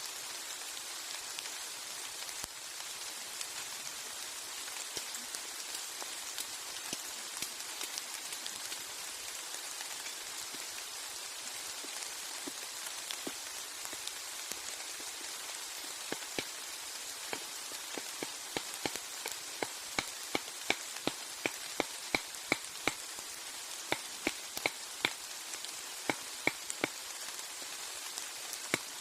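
Heavy rain hissing steadily on the forest canopy and ground. About halfway in, a run of sharp knocks begins and settles into about two a second toward the end.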